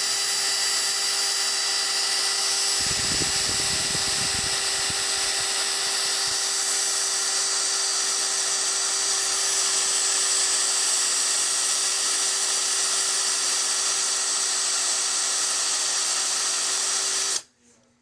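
Power drill running steadily in reverse, its SpeedOut extractor bit cutting into a stripped bolt: a loud, even motor whine that holds one pitch and cuts off suddenly near the end. From about three to five seconds in, a rough low rattle sounds under the whine as the bit bites into the bolt head.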